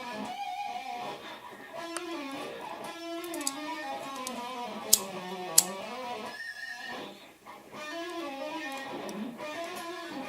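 Instrumental electric guitar music with notes moving up and down, broken by two sharp clicks about five seconds in.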